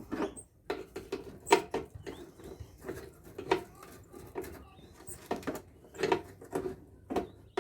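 Adhesive tape being peeled off an air-conditioner blower's spring by hand, in a string of short, irregular rips and crackles.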